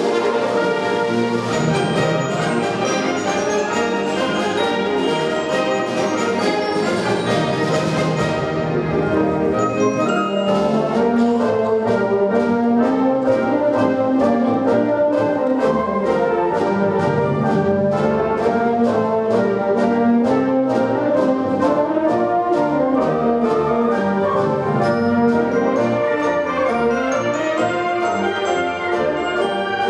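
Large concert band playing, with brass prominent in full sustained chords over woodwinds. From about ten seconds in, a steady percussion beat of about two to three strokes a second runs under the band.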